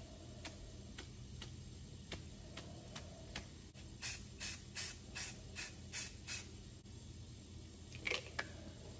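Aerosol spray-paint can fired in seven short hissing bursts in quick succession, about two a second, over faint steady ticking about twice a second. Near the end comes a brief crinkling rustle.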